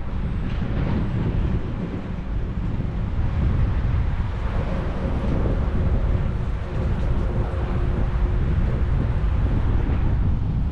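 Wind buffeting a GoPro action camera's microphone on a moving bicycle: a steady low rumble of wind noise. A faint steady hum joins it in the middle.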